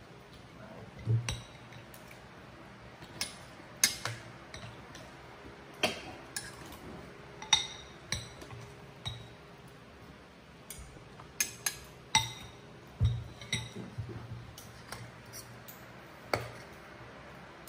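Metal spoons and forks clinking and scraping against ceramic bowls and plates as people eat: a dozen or so sharp, irregular clinks spaced about a second apart.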